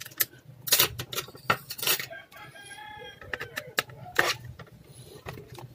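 Sharp clicks and taps of a metal screwdriver tip working at a laptop's WiFi card and plastic chassis to free the card. A brief pitched call sounds in the background, a little over two seconds in, lasting under a second.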